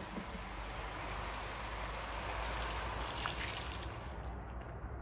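Hot water being poured from a glass into a pan of fried onions, carrots and spices for plov. The pour runs steadily, grows brighter in the middle and trails off near the end.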